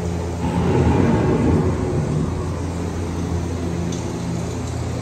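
Steady low machine hum of a moving ride boat, with a louder rushing noise for about the first two seconds.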